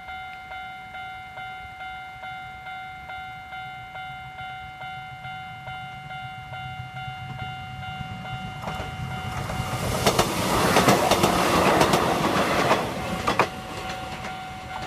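Japanese level-crossing alarm ringing its steady electronic ding-ding, about three strokes a second, as a Kōnan Railway electric train passes over the crossing: it builds from about eight seconds in, its wheels clattering over the rail joints for some four seconds, then fades while the alarm keeps ringing.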